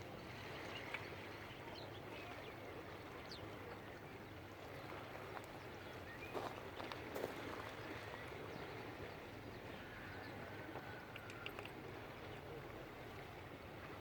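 Faint, steady outdoor background noise by the water, with a few faint short high chirps and occasional light clicks.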